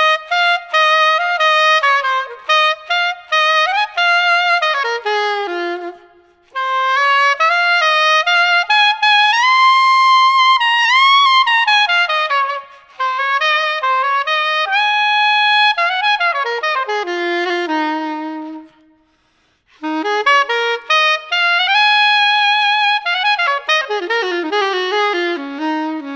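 Yanagisawa SC-992 bronze curved soprano saxophone playing an unaccompanied melodic solo in three phrases, separated by short breaths about six seconds in and again near nineteen seconds. It is recorded close on a Warm Audio WA-47 tube condenser microphone, with a little added reverb and gentle compression.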